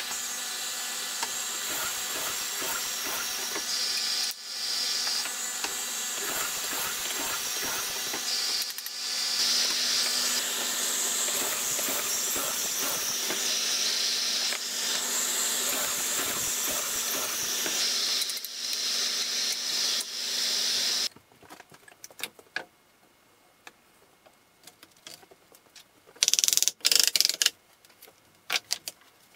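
Steady hissing machine noise with a low hum, from a running shop tool, which stops abruptly about two-thirds of the way in. A few short, loud clattering knocks follow near the end.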